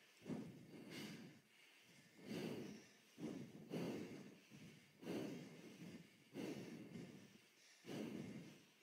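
Faint heavy breathing: regular breaths, roughly one every second and a quarter, each swelling and fading.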